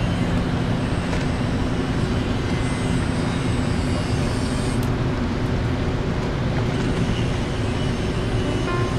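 Steady low rumble with a hiss, at an even level and with no distinct events.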